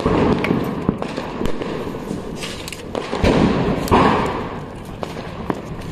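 Firecrackers going off: a string of sharp, irregular bangs and cracks, with louder bursts at the start and again about three seconds in.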